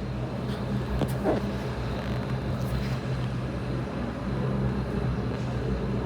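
Steady drone of an airliner's engines, with a low hum of level tones.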